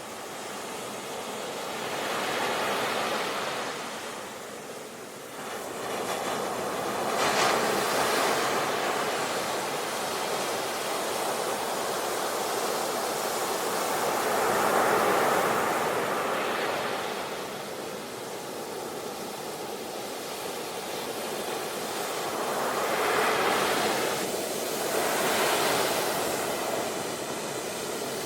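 Ocean surf: waves breaking and washing in, a steady rush of water noise that swells and eases every few seconds. There is a sharper surge about a quarter of the way in and two more near the end.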